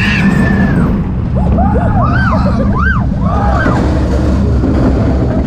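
Wind buffeting the camera microphone on a moving roller coaster, a steady loud rumble, with riders' short rising-and-falling cries about two to three seconds in.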